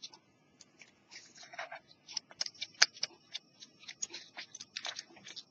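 Cotton swab scrubbing blue-green corrosion off a small metal part of a portable cassette player: quick, irregular scratchy rasps, several a second.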